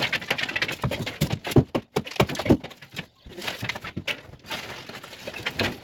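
Irregular knocks and clattering, as of boards and debris being handled and dropped during demolition.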